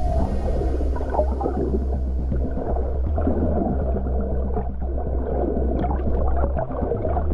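Underwater sound of a humpback whale vocalizing amid gurgling water noise, over a steady low hum.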